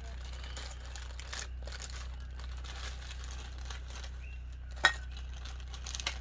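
Plastic toy packaging being crinkled and handled, with a single sharp click about five seconds in.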